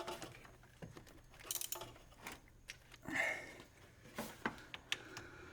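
Scattered light metallic clicks and scrapes of a wrench working a car battery terminal bolt, being tightened and checked for play.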